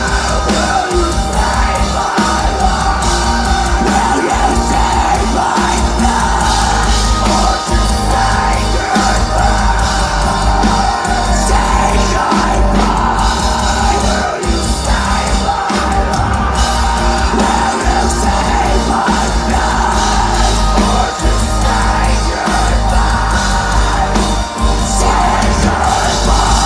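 Live metalcore band playing loud, with heavy distorted guitars, drums and yelled vocals. The bass and drums break off briefly about once a second in a stop-start rhythm.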